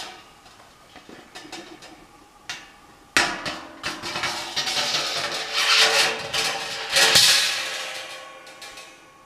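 Stainless steel inner pot of an Arsegan EasyBrew 30 brew kettle being fitted into the outer kettle: a sharp clank about three seconds in, then several seconds of metal knocking and scraping with a faint ringing tone, dying away near the end.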